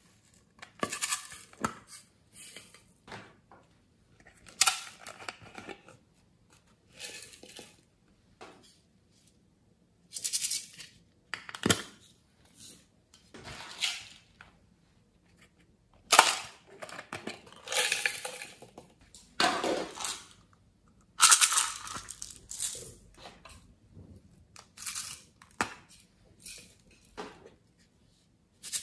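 Makeup palettes and glitter being handled over a glass tray: an irregular string of short clicks, clinks and scraping rattles every second or two, the loudest a little past the middle.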